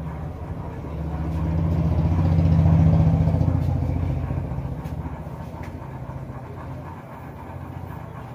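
A motor vehicle's engine passing close by, a low, steady drone that swells to its loudest about three seconds in and then fades away.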